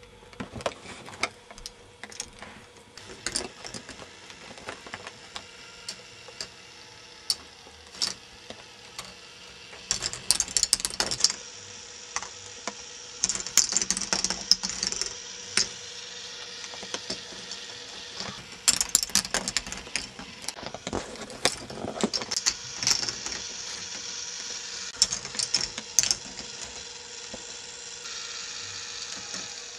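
K'nex ball machine running: plastic balls clicking and clattering along the tracks and lifts in irregular rattling bursts, over the faint steady hum of its motor driving the lifts.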